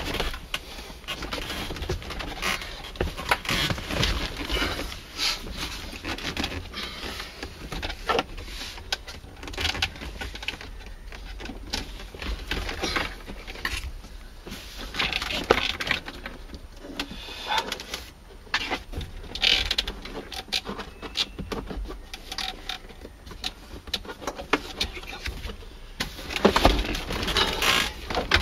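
Hands handling and fitting the plastic dashboard trim of a 1995 Mercedes-Benz C280 (W202): irregular clicks, taps and rattles of plastic parts, with rustling between them.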